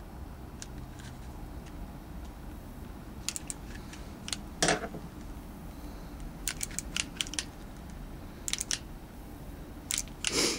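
Small clicks and ticks of a screwdriver working a pistol's trigger screw and of parts being handled on a rubber mat. There are several quick runs of clicking, and two louder clunks, one a little under halfway in and one at the end.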